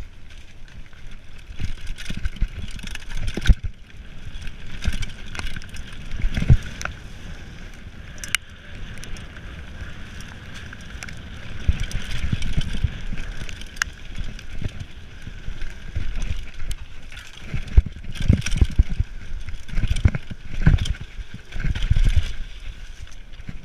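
Mountain bike riding fast down a dirt forest trail: tyres rumbling over the ground with uneven low buffeting, and frequent sharp knocks and rattles as the bike hits bumps.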